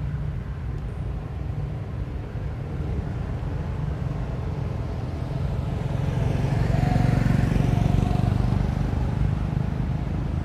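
Road traffic: a steady low rumble, with a vehicle passing by that swells to its loudest about seven seconds in and then fades.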